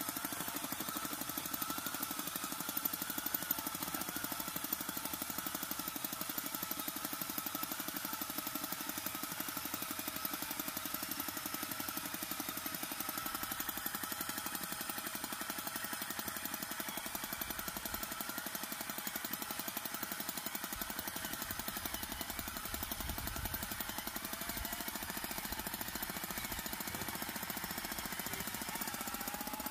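Homemade scale-model 4x4 tractor running: a steady, fast engine-like chugging with a rapid even pulse as it works through loose sand.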